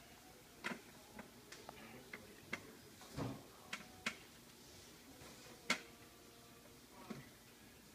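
Irregular light clicks and taps, about ten in all, with a duller knock about three seconds in and the loudest click a little before six seconds.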